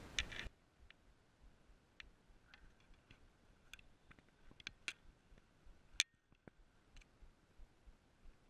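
Faint, irregular clicks and ticks from a baitcasting rod and reel being handled while the lure is snagged on rocks, with one sharper click about six seconds in. A short hiss stops suddenly about half a second in.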